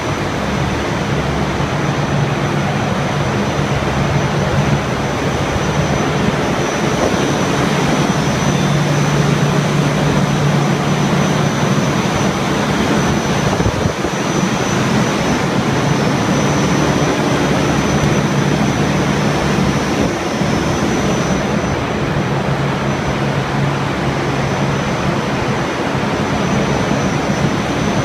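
Steady, loud rush of industrial machinery running, with a low hum and a thin high whine held throughout.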